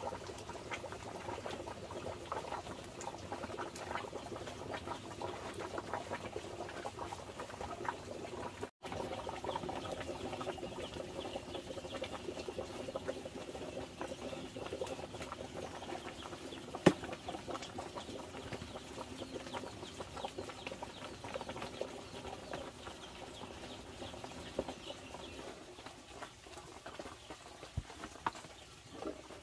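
Dry bran rustling and scratching as hands rub it through a woven bamboo sieve tray. Then a large pot of water boils and bubbles as the bran is tipped in and stirred with a wooden paddle, with one sharp knock partway through.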